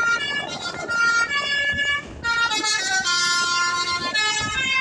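Basuri V3 telolet bus horn playing a tune: a run of held horn notes that jump from pitch to pitch, with a short break about two seconds in.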